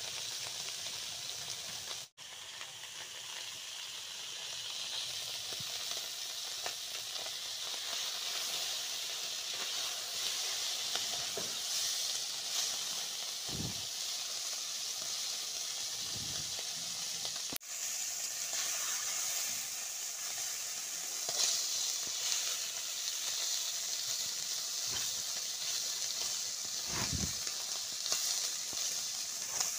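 Small tengra catfish sizzling as they fry in hot oil in a large iron kadai, a steady hiss. There are a few soft knocks as they are stirred.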